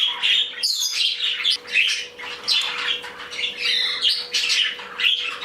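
Several pet budgies chirping, chattering and warbling together in quick overlapping calls. A faint steady hum runs underneath.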